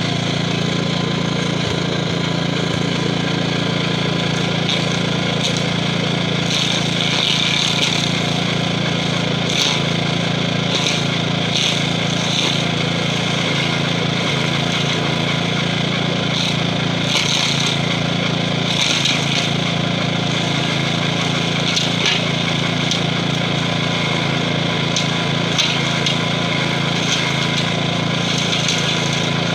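Gravely 5640 walk-behind tractor's 12 hp Kohler engine running steadily under load, driving a stump grinder cutting wheel into a tree stump. Every few seconds there is a brief, harsher grinding as the teeth bite into the wood.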